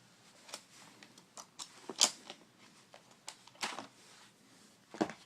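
Scattered plastic clicks and knocks as a Toshiba Satellite L755 laptop is handled and its battery released and pulled out, the sharpest click about two seconds in.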